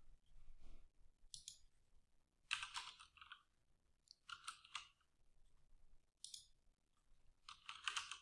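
Faint typing on a computer keyboard: short clusters of keystrokes with pauses between them.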